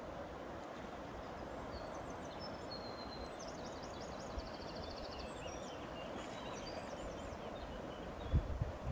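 Steady rush of flowing river water, with small birds chirping and giving a rapid high trill in the middle. A low thump near the end.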